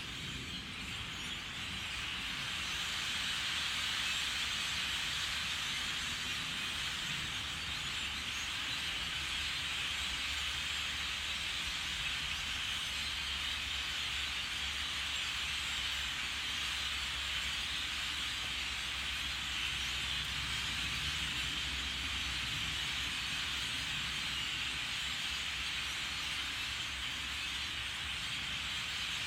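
Steady, dense chatter of a large flock of birds, blended into an even hiss, over a low rumble.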